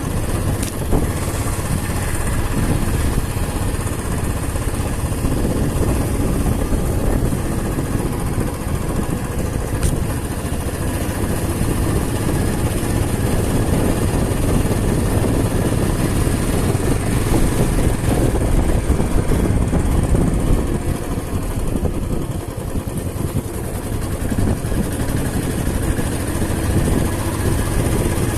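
Motorcycle engine running steadily while the bike is ridden along the road, a continuous loud drone with small swells in level.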